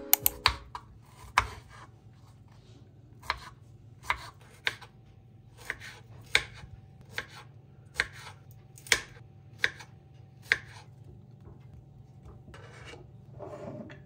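Kitchen knife dicing strawberries on a bamboo cutting board: a slow, irregular series of sharp knocks of the blade meeting the board, about one a second, stopping well before the end. A softer scraping sound follows near the end.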